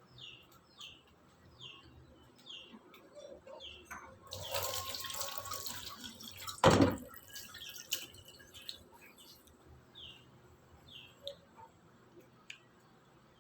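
Water running for about two seconds, ending in a single sharp knock, with a bird chirping over and over in short repeated chirps.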